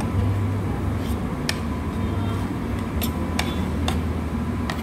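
Clinks of tableware, about five short sharp ones spread through, over a steady low room hum.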